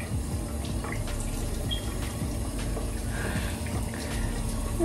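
Tap water running steadily into a sink while a face is washed.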